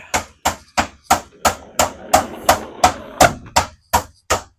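Quick, evenly paced footsteps, about three sharp footfalls a second.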